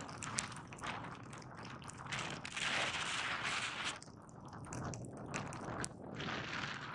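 Skis sliding through deep, fresh powder snow: a rushing hiss with scattered clicks and crackles, swelling loudest for about a second and a half around the middle, then easing.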